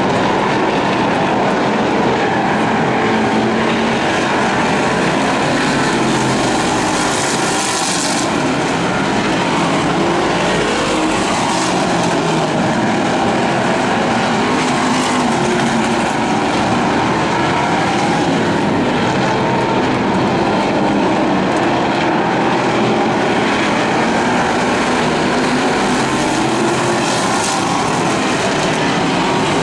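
A pack of hobby stock dirt-track race cars running laps at racing speed, several engines at once. Their pitch rises and falls as the cars pass and accelerate through the turns.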